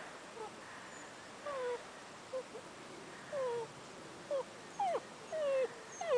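Great Dane puppies whimpering: about ten short whines, each falling in pitch, coming closer together and louder toward the end.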